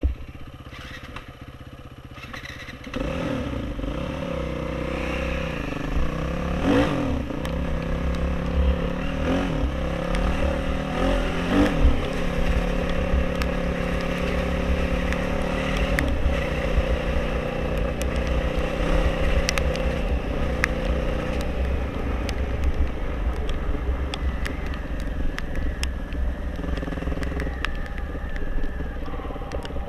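Off-road motorcycle engine, louder from about three seconds in, revving up and down several times and then running fairly steadily, with a low rumble and scattered knocks and rattles.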